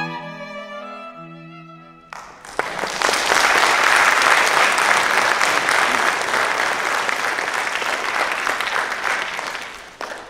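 Slow bowed-string music with long held notes, fading out over the first two seconds, then audience applause for about eight seconds, cut off abruptly just before the end.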